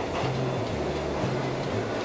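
Background music with a stepping bass line, over a BRIO toy train rolling along a wooden track with a few faint clicks.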